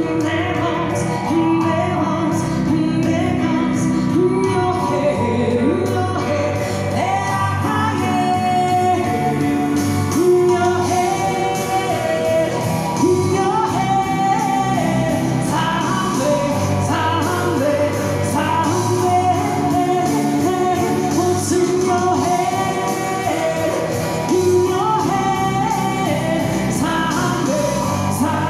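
A woman singing live into a microphone while strumming an acoustic guitar, in a continuous song.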